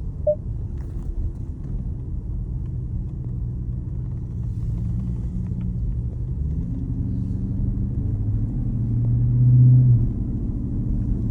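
Jeep Grand Cherokee's Hemi V8 running at low revs, a steady low rumble while driving through deep snow. The engine note rises about six and a half seconds in, swells loudest around nine to ten seconds, then eases off.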